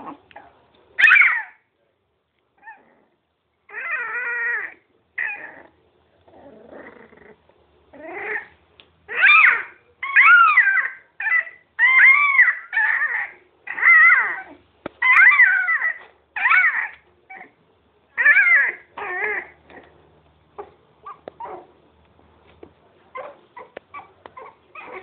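Miniature pinscher puppies whining and yelping in a string of short, high, wavering calls. One call comes about a second in, then a few more, then a quick run of them in the middle.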